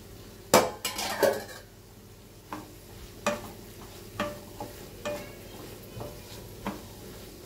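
A wooden spatula stirring chunks of potato and cauliflower in a kadai. A few loud clatters come in the first second and a half, then single scraping strokes against the pan about every half second to a second.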